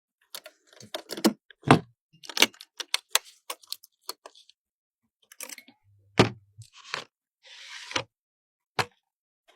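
Irregular sharp clicks, taps and knocks of computer parts and plastic packaging being handled, with a short crinkle near the end.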